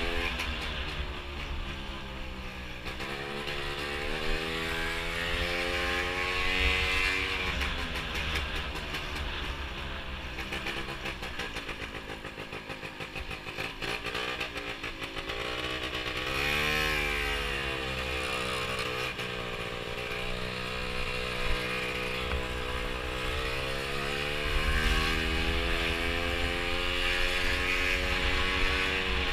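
Gilera Runner scooter's two-stroke engine, bored out with a Malossi 172 cc kit, running under way with the revs rising and falling several times. The longest climbs come a few seconds in and from about two-thirds of the way through almost to the end.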